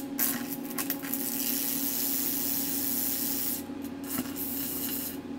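Carbon arc lamp burning with a steady hiss as the arc is struck between its carbon electrodes, over a low steady hum from the power supply and fan. The hiss breaks off briefly twice in the second half as the arc is fed by hand.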